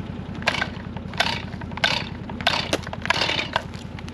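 A side-by-side engine running steadily at low revs, under a series of short, loud crunching or scraping noises about every two-thirds of a second.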